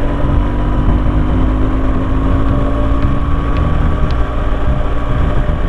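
BMW R1200GS Adventure's boxer-twin engine running steadily under way with wind rush, heard through a microphone inside the rider's helmet; the engine note eases slightly lower midway.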